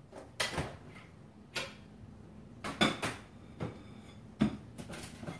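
A freezer door being opened and shut and a bowl set inside: a handful of separate clunks and knocks, the loudest about three and four and a half seconds in.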